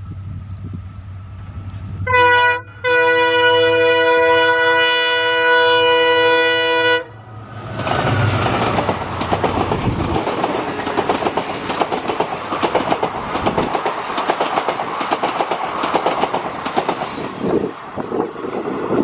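Diesel locomotive sounding its horn, one short blast and then a long one of about four seconds, over its low engine drone. The train then passes, wheels clattering over the rail joints.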